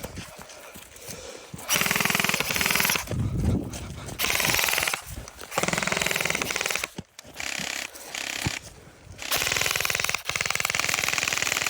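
Airsoft rifle firing full-auto in a series of bursts, each about a second or two long with short pauses between, the last burst the longest.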